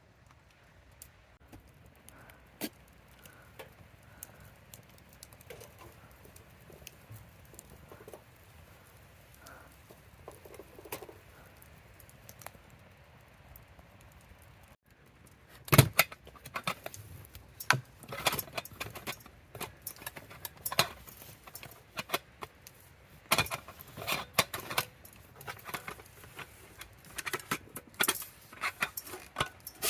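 Metal camp cookware and utensils being handled: faint soft clicks at first, then from about halfway a busy run of sharp metallic clinks and clatters.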